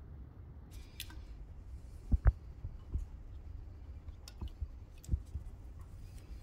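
Soft knocks and clicks of plastic pill bottles and a plastic solvent bottle being handled and set down on a towel, a handful of separate taps with the loudest a close pair about two seconds in.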